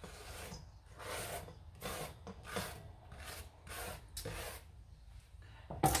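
Zucchini noodles being pushed by hand off a cutting board into a stainless steel bowl: a run of short scraping, rubbing strokes, a little more than one a second, with a sharper clack near the end.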